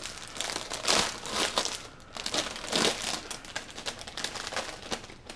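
LEGO set packaging, the plastic parts bags and wrapping, crinkling and rustling as it is handled, with louder rustles about a second in and again near three seconds.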